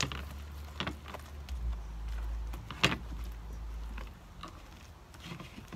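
Hands squishing and pulling sticky homemade slime, with a few sharp wet pops, the loudest nearly three seconds in, over a low rumble that stops about four seconds in.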